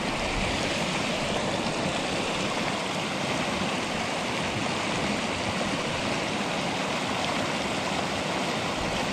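Steady rush of a small river's white-water run pouring over rocks into a pool, an unbroken noise with no pauses or changes.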